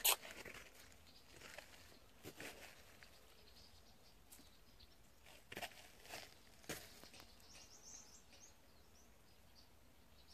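Faint outdoor ambience with a few scattered clicks and rustles, the loudest a sharp click right at the start. A faint high chirping comes in a little past the middle.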